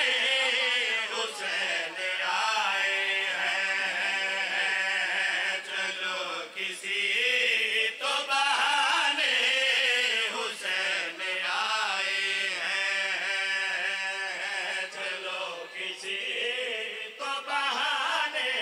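A group of men chanting a devotional refrain in chorus into microphones, voices holding long, wavering notes.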